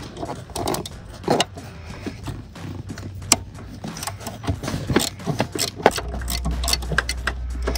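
Small ratchet and 10 mm socket clicking irregularly as the bolt holding the wiring-harness connector to the engine computer is loosened, with light metal ticks of the tool and bolt.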